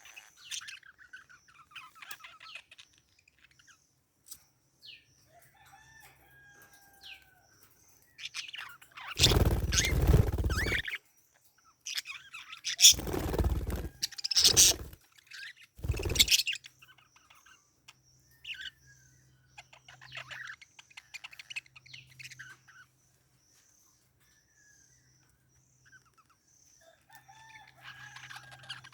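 Parakeets chirping and twittering in short, quick calls. Four loud, harsh bursts come between about nine and sixteen seconds in, the first lasting about two seconds.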